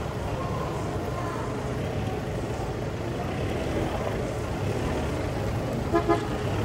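Ford Everest SUV's engine running steadily as it drives slowly across the grass. About six seconds in there is a brief double call.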